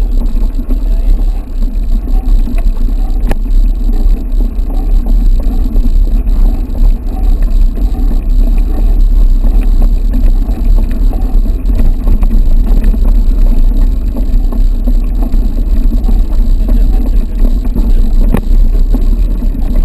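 Wind buffeting a GoPro's microphone over the rumble of a mountain bike rolling along a dirt trail, with a couple of sharp knocks from the bike.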